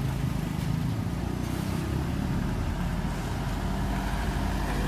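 Heavy truck's diesel engine running at a steady idle. Near the end a passenger van's engine comes close and passes by.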